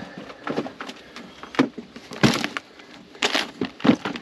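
A clear plastic storage drawer being handled and slid back into a plastic drawer unit, with a handful of irregular hard plastic knocks and scrapes.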